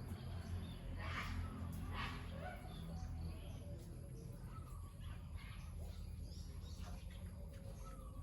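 Farm animal calls: two short, rough calls about one and two seconds in, then a few faint short chirps, over a low steady rumble.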